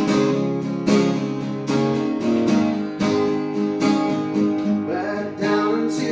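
Instrumental passage of a song: guitar chords strummed in a steady rhythm, about one strum a second.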